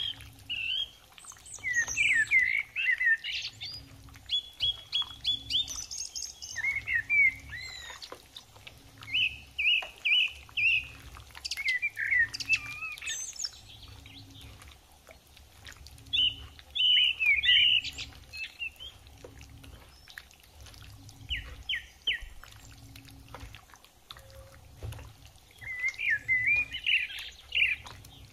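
Birds chirping and calling in repeated short bursts, over a low regular pulse about once a second.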